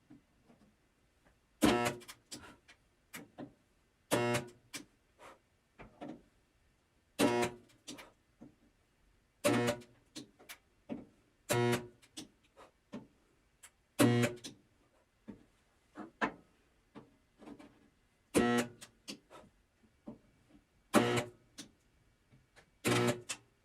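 Handheld gun-type spot welder firing a series of welds, about one every two to three seconds: each a short buzzing hum followed by a few lighter clicks.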